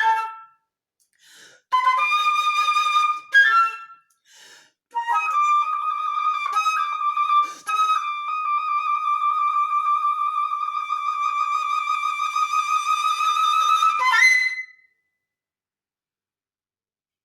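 Solo flute playing short phrases separated by pauses, then one long held note of about nine seconds with a slight waver. It closes on a brief higher note.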